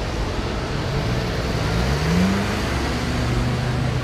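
Traffic on a busy road, with a motor vehicle's engine rising in pitch as it accelerates about two seconds in, then running steadily over the general rumble.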